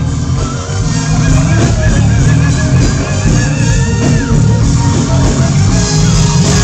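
Loud live music played over a stage sound system: a band with heavy, steady bass and a wavering held melody line on top.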